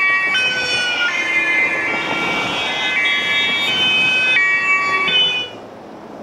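German police two-tone siren (Martinshorn) on a police van, alternating between a high and a low pitch about once a second. It stops abruptly about five seconds in, leaving a low hum of street noise.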